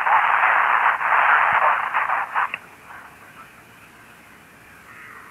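Hiss of static on an open amateur-radio voice channel, squeezed into a narrow telephone-like band, with no one speaking. About two and a half seconds in it cuts off suddenly, leaving only a faint hiss.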